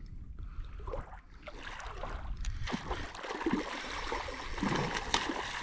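Hooked pike thrashing and splashing at the surface of shallow water as it is played in, with irregular gurgling splashes growing louder after a second or so.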